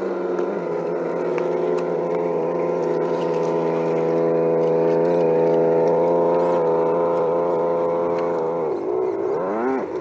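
Simulated engine sound from a 1:10-scale RC crawler's on-board sound unit, running at a steady pitch. Near the end the pitch dips and then climbs again, like a rev.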